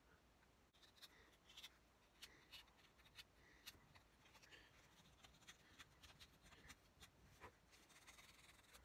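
Faint, irregular scratching and rubbing on a small wooden lure body as it is hand-worked with a hobby knife and a scrap of sandpaper: short scrapes and light clicks, a few each second.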